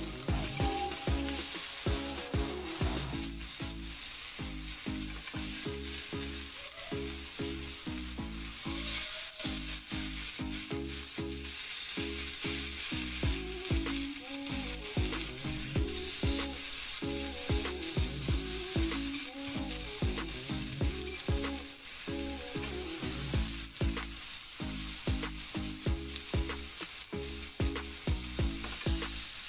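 Seasoned tempeh sizzling steadily on a hot ridged grill pan, with low background music underneath.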